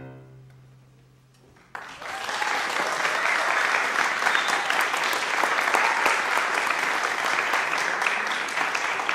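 The last chord of piano and strings dies away into a brief hush, then just under two seconds in an audience starts applauding and keeps up steady applause.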